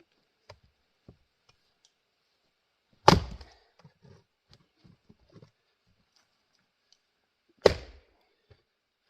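Axe striking grand fir rounds while splitting firewood: two sharp blows about four and a half seconds apart, each followed by a brief crackle of the wood giving way.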